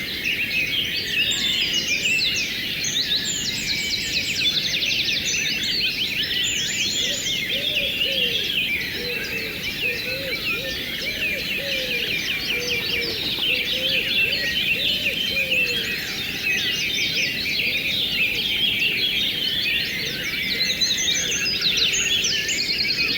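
Dense chorus of many songbirds chirping and trilling over the steady rush of a flowing river. Lower-pitched calls repeat several times through the middle stretch.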